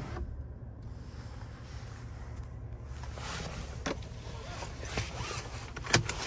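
Steady low hum in an SUV cabin, with rustling and a few light clicks and knocks from hands handling the phone and the interior trim. The sharpest click comes near the end.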